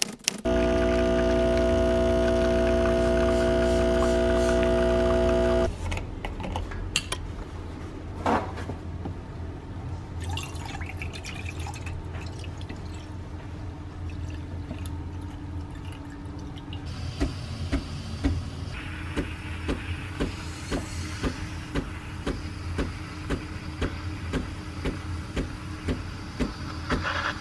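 An espresso machine runs with a loud, steady hum for about five seconds, then stops abruptly. Milk is poured into a stainless steel frothing pitcher. From about two-thirds of the way in, the steam wand hisses as it froths the milk, with a regular ticking about twice a second.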